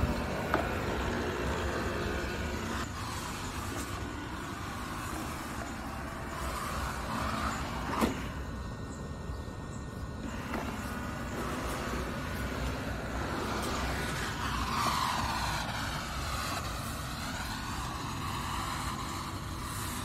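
Eufy G30 robot vacuum running, a steady whir from its suction motor and brushes, with a sharp click about half a second in and another about eight seconds in.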